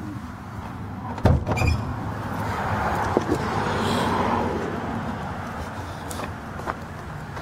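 A car door clunks and thumps shut with a pair of knocks about a second and a half in, over the steady idle of a 355 small-block Chevy V8.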